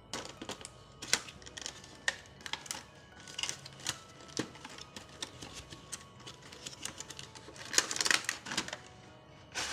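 Small plastic toy kitchen pieces handled, clicking and tapping against each other in an irregular run of light clicks that is busiest about eight seconds in.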